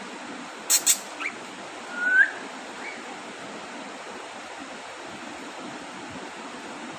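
Cockatiel giving a short rising whistle call, with a brief chirp just before it. Two sharp clicks come about a second in. A steady hiss sits under it all.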